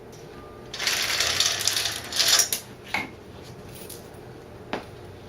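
Motorcycle roller drive chain clattering as it is pulled off the sprockets, a dense metallic rattle lasting about two seconds, followed by a couple of single clinks.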